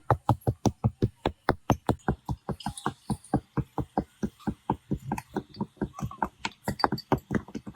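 Rapid, steady knocking: repeated blows about five or six a second, each a short dull strike with little ringing, in the way of fast hammering or ramming in a workshop.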